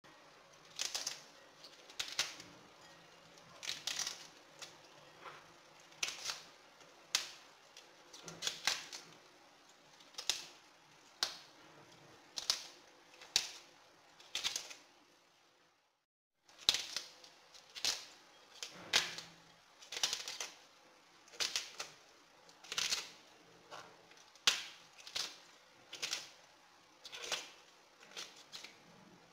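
Outer leaves of a globe artichoke being snapped off one by one by hand, a crisp snap about every second. The snapping breaks off for about a second near the middle.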